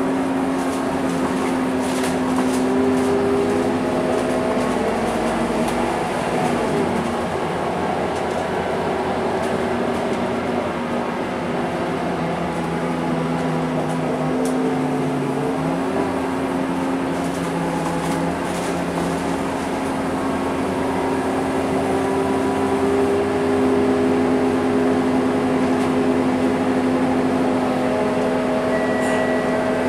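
Scania K230UB single-deck bus heard from inside the passenger saloon while under way: a steady engine drone with whining tones that slowly rise and fall as the bus changes speed.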